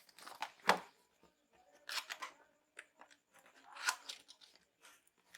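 A cardboard product box being opened by hand: a sharp snap under a second in, then rustling and scraping of the packaging around two and four seconds in.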